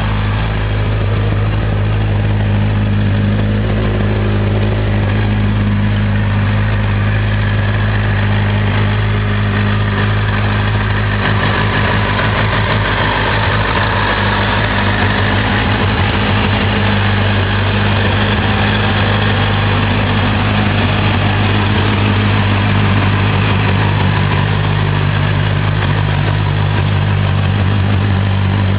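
2002 Triumph TT600's inline four-cylinder engine idling steadily, with no revving.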